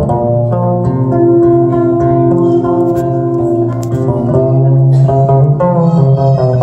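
Solo acoustic guitar played live, fingerpicked melody notes over held low bass notes that ring on.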